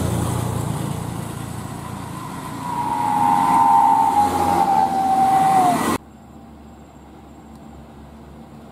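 A small pickup truck drives up and passes close by, its running noise swelling with a steady high whine that slides slowly down in pitch as it goes past. About six seconds in the sound cuts off suddenly to a faint, steady low hum of distant traffic.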